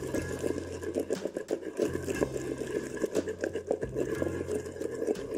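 Wooden pestle mashing and stirring a thick, wet palm-oil and goat-brain paste in a mortar, a quick run of squelching, scraping strokes.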